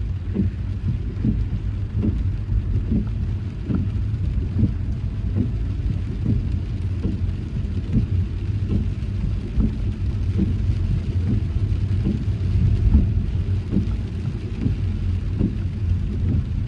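Car driving in heavy rain: a steady low rumble of engine and road noise, with many irregular taps of raindrops striking the car, several a second.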